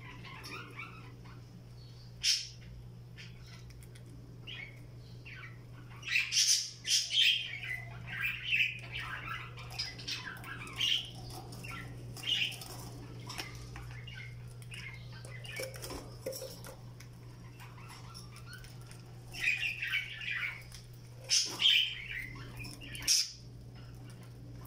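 Budgerigars chattering and squawking in short, busy calls, in two spells: one starting about six seconds in, another near the end. There are a few sharp clicks, over a steady low hum.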